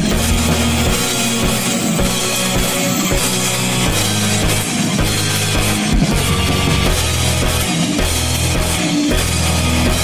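Shoegaze rock music: a dense wall of distorted guitar over bass and a drum kit, loud and steady throughout.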